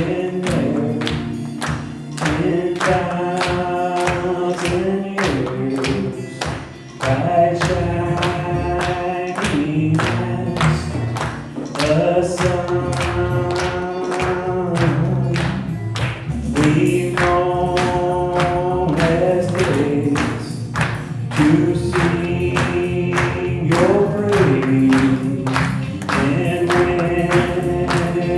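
Live worship song: sung melody over instrumental accompaniment with a steady beat.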